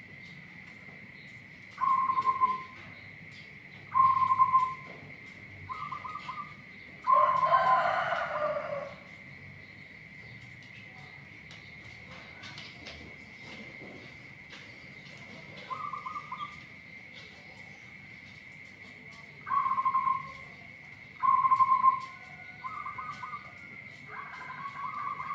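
Local zebra dove (perkutut) cooing in short, clipped notes under a second long, about nine calls spaced a few seconds apart, with a longer, rougher call about seven seconds in. The owner considers its voice strange.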